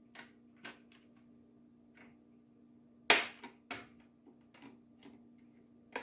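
Plastic trim on an HP all-in-one computer being pried off with a flathead screwdriver: small plastic clicks, then a loud sharp snap about three seconds in and a second snap about half a second later, as its plastic pins unsnap.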